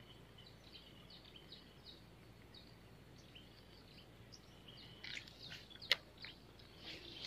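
Faint small-bird chirps, short high calls repeating and getting busier near the end, with one sharp click about six seconds in.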